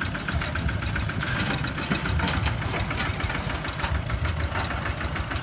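Kubota single-cylinder diesel engine of a two-wheel walking tractor running steadily with a rapid knock, the tractor being driven under power.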